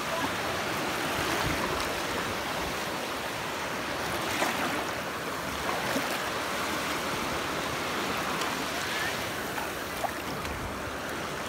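Small waves washing in and out over sand in shallow water: a steady rush of surf.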